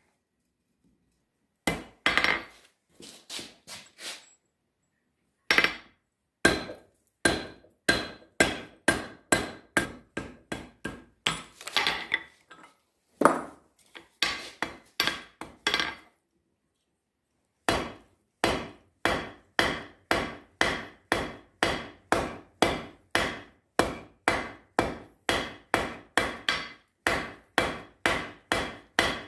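Blacksmith's hammer striking steel on an anvil, each blow with a short metallic ring. The blows come in runs of about two a second, with a couple of short pauses.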